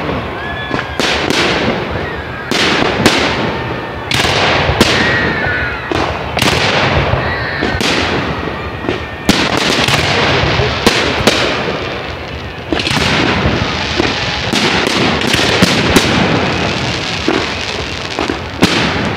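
Aerial fireworks display: a rapid run of shell bursts and bangs with crackle, several a second at its densest in the middle and latter part, with a faint whistle or two near the start.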